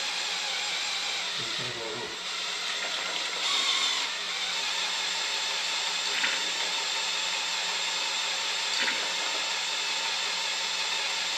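A steady motor-driven whir and the rush of oil streaming out of a Ford 352 FE engine block into a drain pan as a hooked-up oiling system flushes oil through the block's passages. A few faint, brief squeaks sound over it.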